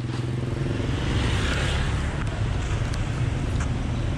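A motor vehicle engine running steadily, a low hum with some road noise.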